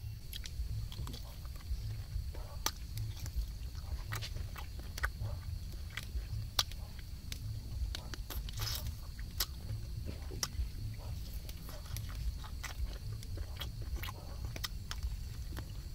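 Close-up mouth sounds of a man biting and chewing cooked snake meat: many short wet smacks and crunches, irregular throughout, over a constant low rumble.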